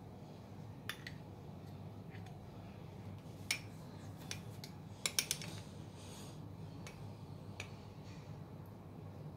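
A steel spoon clinking against glass dessert cups and a small syrup cup as it spoons sugar syrup onto set puddings: a handful of sharp clinks, the loudest a quick cluster of three about five seconds in, over a low steady hum.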